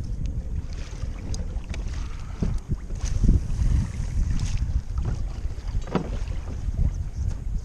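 Wind buffeting the microphone on a kayak at sea, with water lapping at the hull and a few light knocks.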